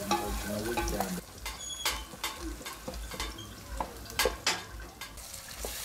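Sliced onions sizzling in oil in an aluminium pot, stirred with a wooden spoon that scrapes and knocks against the pot. The knocks come as irregular sharp clicks, the loudest two close together about four seconds in.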